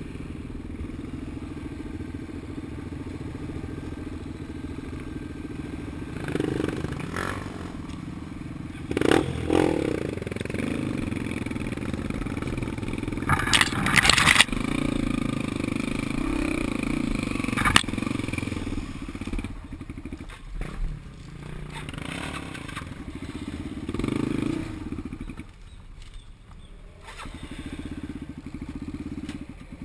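A vehicle engine running and revving up and down, with knocks and clattering over it; the loudest rattle comes about 14 seconds in, and the engine drops lower for a short stretch near the end.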